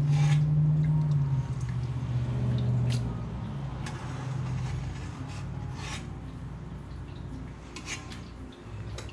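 Kitchen work sounds: a low steady hum that fades away over the first few seconds, then scattered light clinks and scraping of utensils and dishes.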